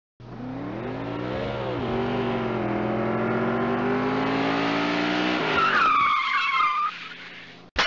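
Car sound effect: an engine revs up, rising in pitch, dips once about two seconds in, then climbs steadily. About five and a half seconds in, tyres screech for just over a second, then the sound fades away.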